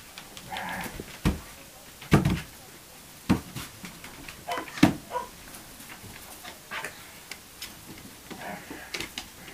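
Dog romping on a wooden floor: about four loud knocks and thumps in the first five seconds, with short scattered vocal sounds between them.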